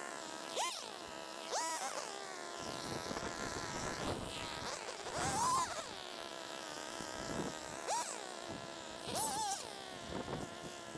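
Small two-stroke engine of a handheld gas cutting tool idling with a steady buzz and revved in quick blips, about six times, with one longer rev near the middle.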